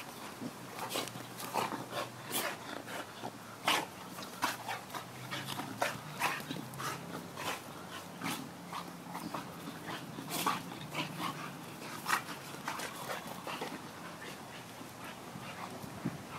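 Two pit bulls play-wrestling, making dog sounds amid many short, sharp sounds of the scuffle.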